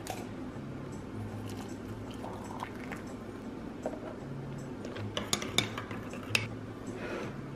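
Liquid poured from a carton into a glazed stoneware mug, then a spoon stirring and clinking against the mug's sides, with a few sharp clinks between about five and six and a half seconds in.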